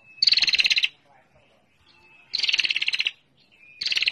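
Female prinia (prenjak) calling in rapid, ticking chattering trills: three bursts of under a second each, the last beginning near the end, each led in by a short thin note.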